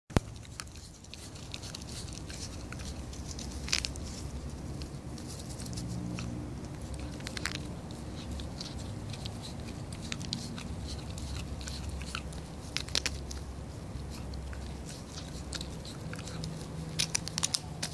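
American Eskimo dog chewing a dried catfish-skin chew, with irregular crunches and sharp cracks. The loudest crack comes about four seconds in, and a quick run of cracks comes near the end.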